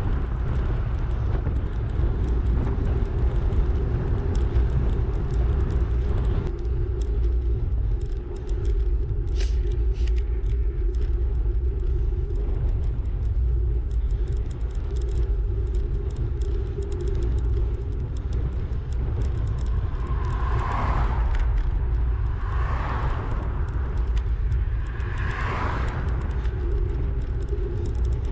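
Wind rumbling and buffeting on the microphone of a camera on a moving bicycle, steady throughout, with three brief louder rushes near the end.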